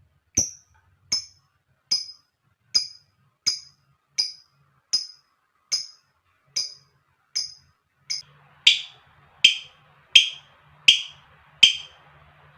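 Lovebird giving a long series of short, sharp call notes, evenly spaced at a little more than one a second. About eight seconds in the notes turn lower and louder.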